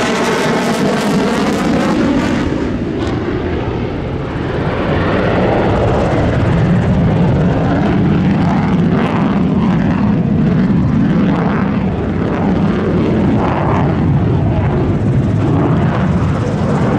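The twin afterburning turbofan engines of an F-15J fighter at high power in a tight display turn, a loud continuous jet noise. A sweeping, phasing sound fills the first few seconds, then the noise dips briefly about four seconds in and grows louder and holds.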